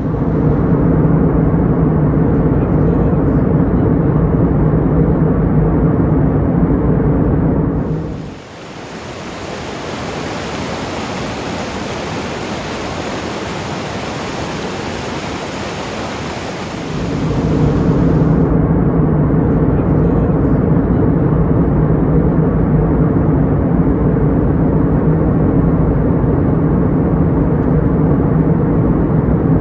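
Boat engine running steadily, its hum over the rush of water and air. For about nine seconds in the middle the engine hum drops away, leaving a quieter rushing hiss before the engine sound returns.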